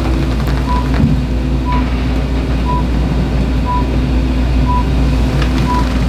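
Steady low machine hum with a short, high electronic beep repeating about once a second, and one brief knock about a second in.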